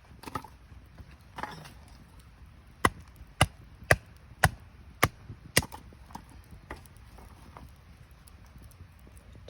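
Six sharp wooden cracks in a regular run about half a second apart, with a few softer cracks around them, over the faint background of a wood campfire.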